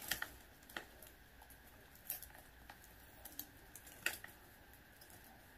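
A handful of faint, scattered light clicks from hands working slowly at the paper wrapping of a small gift box.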